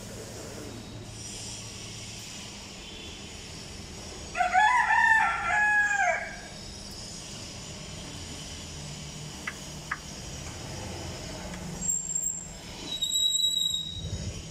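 A rooster crowing once, a call of about two seconds in a few linked segments, about four seconds in, over a steady low hum. A few brief high-pitched tones near the end.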